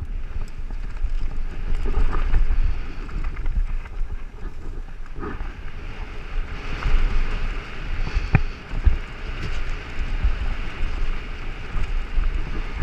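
Downhill mountain bike rattling over a rough dirt-and-rock trail at speed, with wind buffeting the microphone in a heavy rumble. A few sharp knocks from the bike sound through it.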